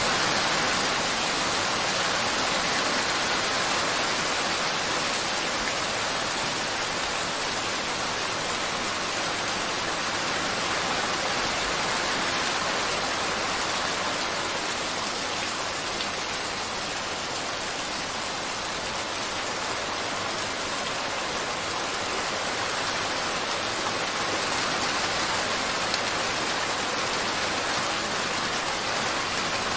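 A steady hiss of rain-like noise with no music or voice to be heard, easing slightly in the middle and swelling again near the end.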